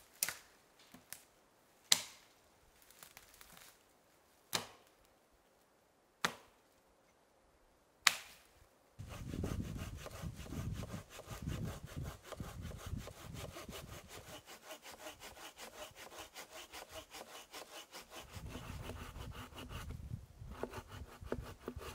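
An axe striking a dead log about five times, a couple of seconds apart; then, from about nine seconds in, a hand saw cutting through the dry log in rapid, steady back-and-forth strokes, likely for campfire wood.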